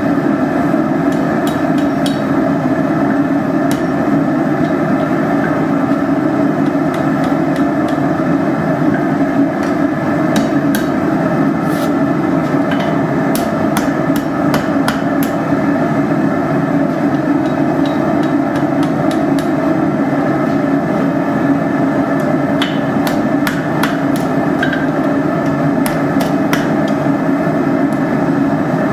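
Hammer blows striking hot iron at irregular intervals, heard over the steady roar of a running forge.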